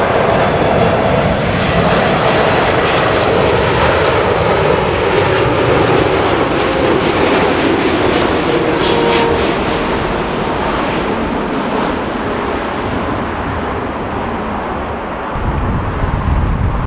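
Boeing 747-8 freighter's four GEnx-2B turbofan engines on landing approach, a loud steady jet noise with a whine that falls slowly in pitch. Near the end the sound gives way to gusty wind on the microphone.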